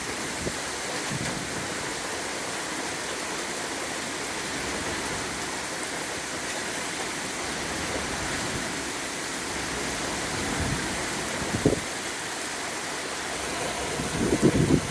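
Heavy rain pouring down steadily in an even hiss, with a few brief low thumps about two-thirds of the way through and again near the end.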